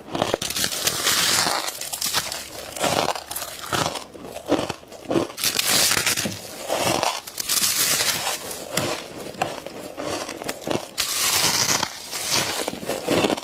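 Close-miked bites into frosty humidifier ice, a crunchy crackle with each bite, repeating about once a second.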